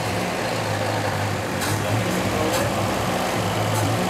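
Car engine idling steadily just after starting, turning a belt-driven power steering pump.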